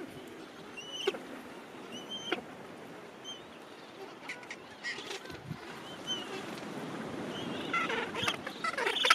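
Gentoo penguins calling in a breeding colony: short scattered honks and squawks, thickening into a busier clamour of several birds near the end, over a steady rush of surf.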